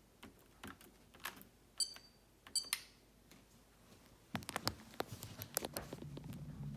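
Digital thermostat buttons being pressed: soft clicks and two short electronic beeps, the setpoint being raised a couple of degrees. About four seconds in a low steady hum comes in, with a few more clicks.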